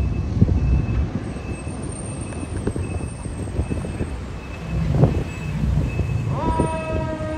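Fire engine's diesel engine rumbling as it pulls out of the station, with a high warning beep repeating just under twice a second. Near the end its siren starts up.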